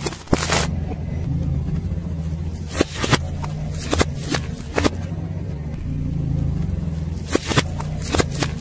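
A car engine running slowly, a steady low hum, while the tyre rolls over and crushes objects: a burst of crunching just after the start, then scattered sharp cracks and snaps.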